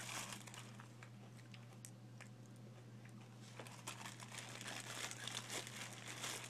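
Faint crinkling of paper and cardboard, with scattered small clicks, over a steady low hum.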